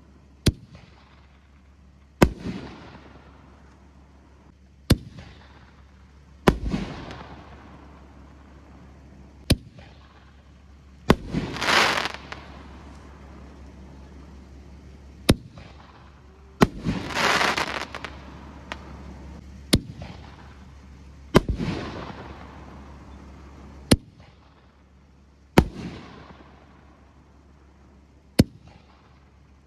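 Titanium Fireworks Mafia 5-inch aerial shells firing in sequence: about a dozen sharp bangs every two to three seconds, several trailing off in echo. Two longer, noisier bursts of over a second come near the middle.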